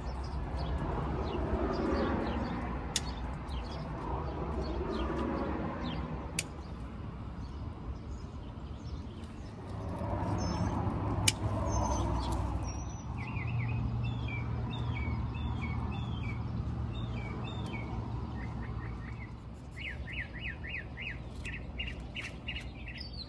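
Small birds chirping in quick repeated series, mostly in the second half, over a low steady rumble of outdoor background. Rustling in the first few seconds and again around ten seconds in, with a few sharp clicks.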